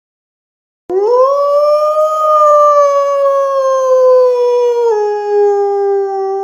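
Large black dog howling: one long howl that starts about a second in, rises quickly, then slowly sinks, dropping a step lower in pitch near the end.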